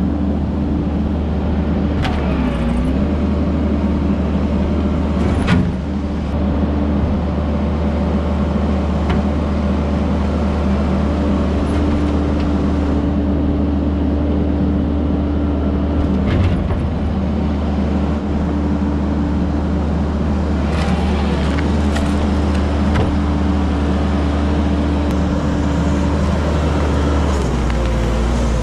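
Loader's engine running steadily under work, with a tone that comes and goes and a few sharp knocks and clanks as the bucket works at a tree stump.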